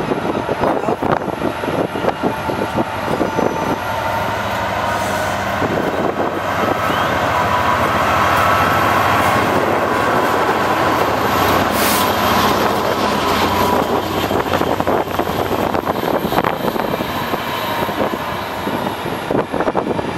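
Class 67 diesel locomotive running past close by along a station platform, its engine growing to its loudest about halfway through as it passes, then its hauled coaches rolling by on the rails.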